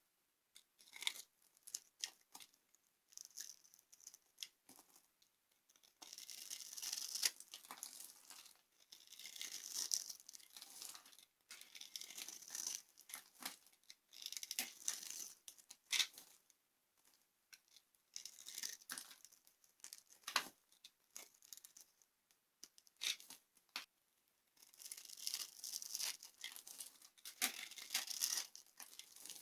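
Dry soap being crushed and crumbled: a run of sharp crunches and crackles, coming in dense spells of a few seconds with short pauses and single snaps between them.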